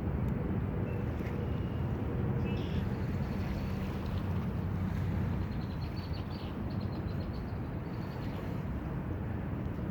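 Steady low rumble of wind on the microphone and lake waves on the shore, with a faint steady hum underneath.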